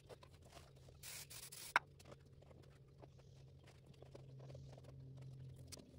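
Gloved hands pressing and rubbing headliner fabric onto a glued foam-backed headliner board: faint scratching and rustling, with a brief louder rustle about a second in that ends in a sharp tap.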